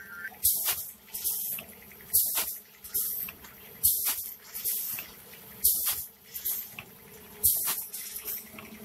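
Automatic snack pouch packing machine running at production speed: a sharp hiss of air about every 1.7 s, with a smaller hiss between, as the pneumatic sealing and cutting jaws cycle, over a faint steady machine hum. Each cycle seals and cuts one pouch, at about 35 packets a minute.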